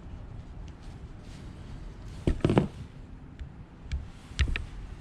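Plastic split wire loom being handled, giving two pairs of sharp clicks or knocks about two seconds apart, over a low rumble of wind on the microphone.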